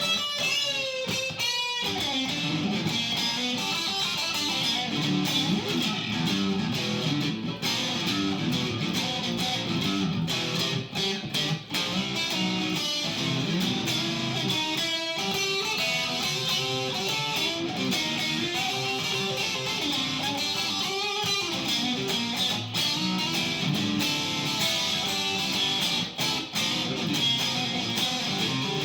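Solo guitar playing an improvised blues, one note and chord after another, with wavering, bent notes near the start.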